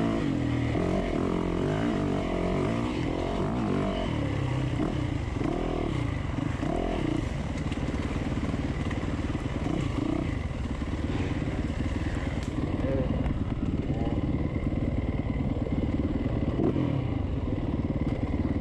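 Dirt bike engine heard up close from the bike, revving up and down with quick throttle blips in the first half, then holding a steadier, lower note.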